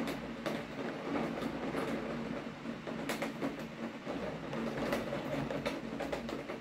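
Heavy rain pouring steadily, with many sharp, irregular taps of drops landing close by.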